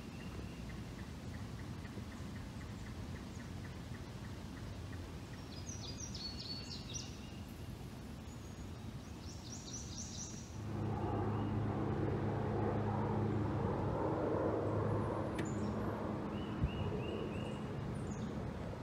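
Birds chirping a few times over quiet river ambience, then, a little over ten seconds in, a low-flying aircraft's steady low drone comes in suddenly and carries on to the end, with a bird still calling faintly over it.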